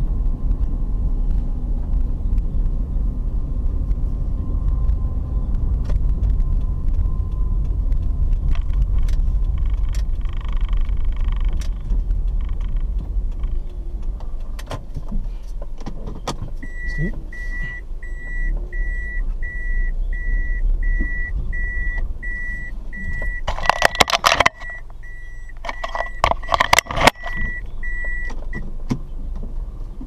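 Car interior while driving: a steady low road and engine rumble with knocks and rattles from the rough dirt road. From about halfway, an electronic beep from the car repeats about twice a second for some twelve seconds. Near the end come two loud rattling jolts.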